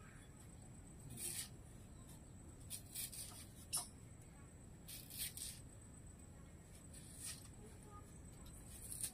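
Vegetables being cut by hand: a handful of short, crisp scrapes at irregular intervals as a knife peels potatoes and onions are sliced on a bonti blade.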